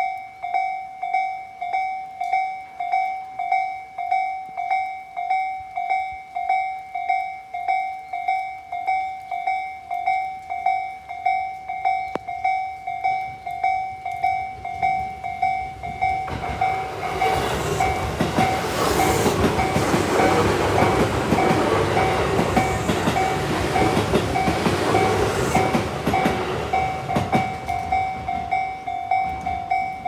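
Electronic level-crossing warning bell of the slow Tōjō type, dinging steadily in an even two-pitched rhythm while the crossing is closed. From about sixteen seconds in, a train runs through the crossing for about ten seconds, its running noise and wheel clatter louder than the bell, which keeps ringing.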